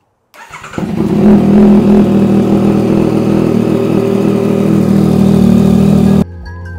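2023 Yamaha XSR900's inline-three engine running at a steady idle through a Kelpi full stainless exhaust, cutting off abruptly near the end.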